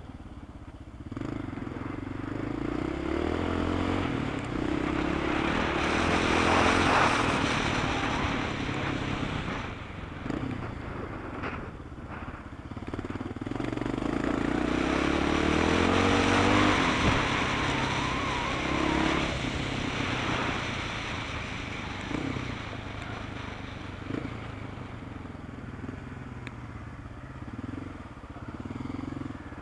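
Off-road motorcycle engine heard from on board during a timed run on a dirt track, revving up and dropping back again and again as the rider accelerates and slows. There are brief dips in the engine note about ten and twelve seconds in.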